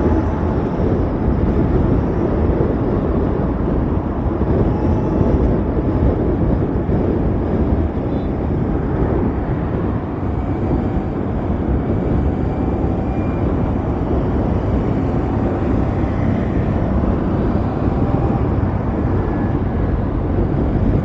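Steady rush of wind and road noise while riding an Ather 450X electric scooter, with faint whines that drift slowly up and down in pitch.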